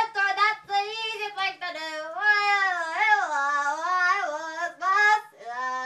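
An adult singing unaccompanied in a high, childlike voice, sliding between long held notes.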